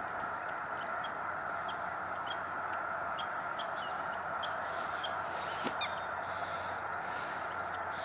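Wild birds calling in a marsh: a steady distant din of calls with short high chirps repeating every half second to a second, and a louder brief call a little before the end.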